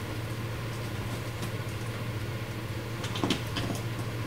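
Steady low machine hum, with a few light clicks about three seconds in as a small part is handled and fitted under the car's bumper.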